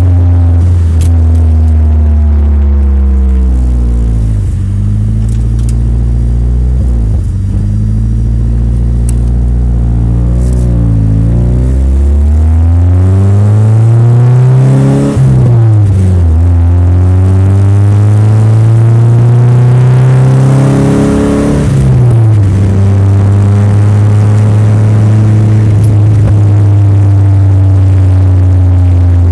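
Nissan S13's engine running and revved up and down several times, with two long climbs in pitch before settling back to a low, steady idle. The engine has a misfire.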